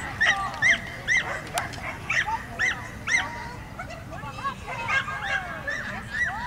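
A dog yipping repeatedly: short, high-pitched yelps that rise and fall, roughly two a second in an uneven string.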